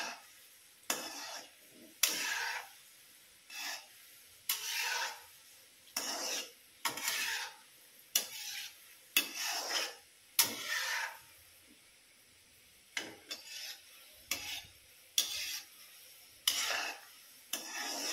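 Perforated metal slotted spoon stirring gulab jamun in hot ghee in an iron kadai, scraping and sweeping against the pan in short strokes about once a second, with a brief pause about two-thirds of the way through.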